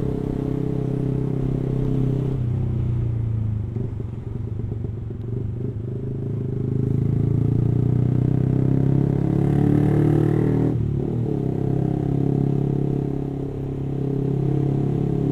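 Yamaha R15 V3's 155 cc single-cylinder engine running through an aftermarket racing exhaust while riding. Its pitch sags, then climbs with the throttle, and drops out sharply for a moment about eleven seconds in before picking up again.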